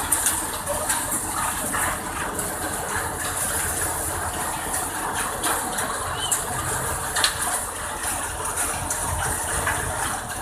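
Groundnut-cum-multicrop thresher running under load as groundnut plants are fed into its hopper: a steady, dense rushing noise with frequent sharp clicks and rattles.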